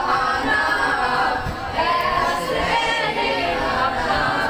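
A boy's solo voice singing a naat, an Urdu devotional poem in praise of the Prophet, without instruments, in long melodic lines that bend in pitch.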